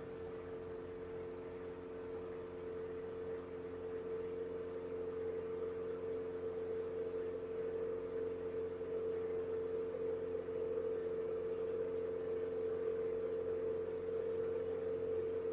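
Engine and propeller of a Diamond single-engine light airplane running at full takeoff power during the takeoff and climb-out, a steady drone of several unchanging hum tones that grows a little louder a few seconds in.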